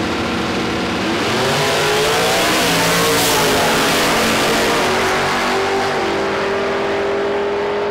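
Two drag-racing cars, one a red Fox-body Ford Mustang, launching at full throttle and accelerating hard down the strip, their engine pitch climbing. The sound peaks as the Mustang passes close about three seconds in, then the engines carry on more steadily as the cars pull away.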